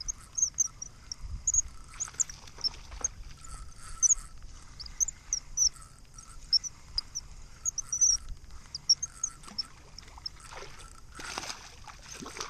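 Small birds chirping in quick, high, short notes throughout. Near the end comes a splash as a hooked largemouth bass thrashes at the surface.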